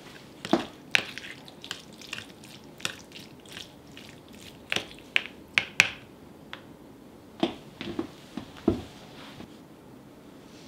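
Metal fork clicking and scraping against a thin plastic container as it breaks up set jelly with diced grapes, in irregular sharp clicks and small knocks. The clicks stop about nine seconds in.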